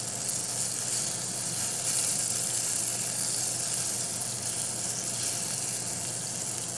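Cherry tomatoes frying in olive oil in a small nonstick pan, a steady high sizzle.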